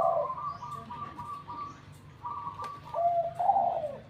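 Caged spotted doves cooing: a run of short, clipped coos, then lower, drawn-out coos from about three seconds in.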